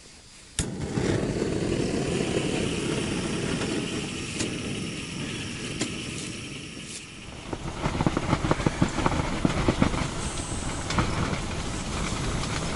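Storm wind buffeting the microphone in a blizzard: a loud rumble that starts abruptly, then turns gustier, with rapid crackling and flapping from about seven seconds in.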